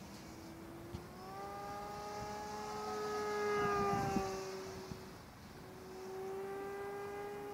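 E-flite Carbon-Z Yak 54 electric RC plane in flight, its brushless motor and propeller whining, the pitch sliding slowly up and then down. The whine is loudest about three to four seconds in, fades to a brief lull a little after five seconds, then comes back steady.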